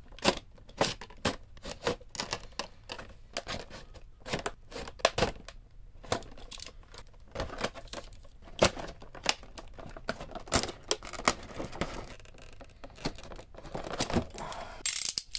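Snap-off utility knife blade cutting along the edge of a clear plastic blister pack: irregular scratchy clicks and crackles as the blade scores the plastic and the blister flexes, with a longer rustle shortly before the end.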